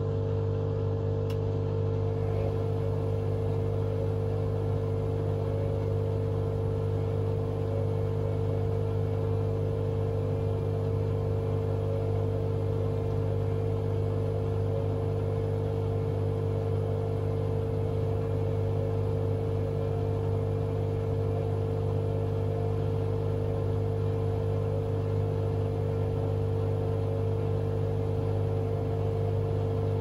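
Hotpoint Aquarius WMA32 front-loading washing machine running at the start of a spin cycle, its drum turning at low speed, with a steady, even hum.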